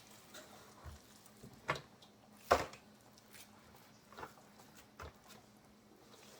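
A few scattered knocks and taps from kitchen handling, the loudest a sharp knock about two and a half seconds in, over a faint steady hum.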